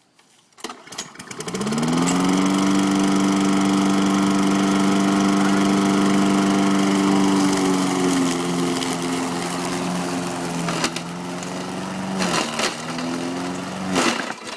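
Petrol lawn mower pull-started; the engine catches and rises to a steady run. Later its pitch sags and wavers, with several sharp knocks as the blade hits the turkey carcass.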